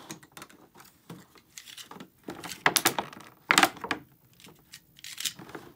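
Clear plastic packaging crinkling and crackling as it is handled, in irregular bursts, with a few louder crackles about three, three and a half, and five seconds in.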